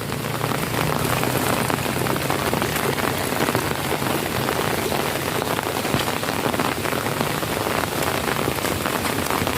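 Steady rain falling, a dense patter of drops on surfaces. A faint low hum fades out over the first few seconds.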